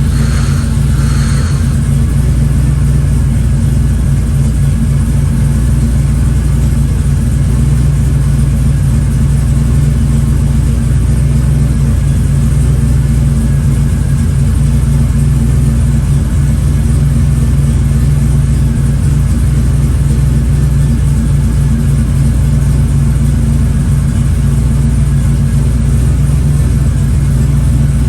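Car engine idling steadily, with a loud, even low hum and no change in speed.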